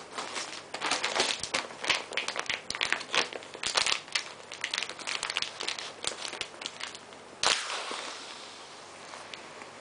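Thin plastic pillow packaging crinkling and crackling in quick irregular bursts as hands pull at it around a vacuum-packed pillow. About three-quarters of the way through comes one sudden loud rush of noise that fades away over a second or so.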